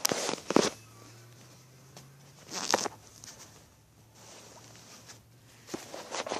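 Handling noise from a phone held in the hand: a few short rustles and scuffs as it is moved about, over a faint low hum.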